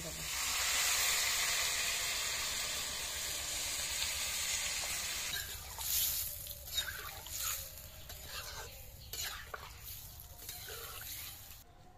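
Water poured into a hot kadai of frying broccoli hisses and sizzles loudly for about five seconds. Then a metal spatula scrapes and stirs through the watery curry in short strokes while it simmers more quietly.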